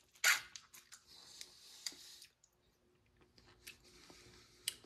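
Mouth sounds of someone tasting energy gel squeezed from a small pouch: a sharp slurp about a third of a second in, then a second or so of hissy sucking, with small wet clicks and lip smacks and one sharper click near the end.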